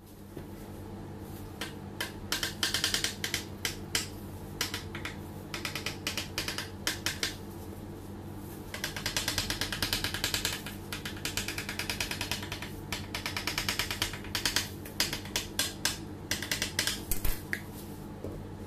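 A knife cutting and scraping through a baked sponge cake's crust, and plastic-gloved hands handling the pieces. It comes as spurts of rapid, crackly clicking, the longest and densest run about nine seconds in, over a steady low hum.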